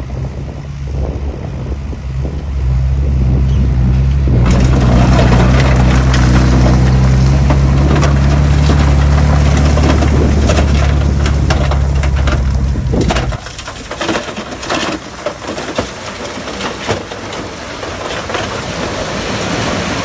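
Heavy diesel earthmoving machine's engine working hard under load while soil crunches and clatters. About two-thirds of the way through, the deep engine drone cuts off suddenly, leaving a quieter, uneven clatter of soil.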